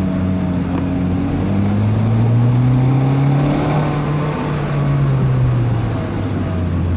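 Honda Fit Hybrid's four-cylinder engine, breathing through a Kakimoto Racing aftermarket muffler, accelerating in S mode. The exhaust note rises in pitch for about three and a half seconds, holds, then drops back about six seconds in.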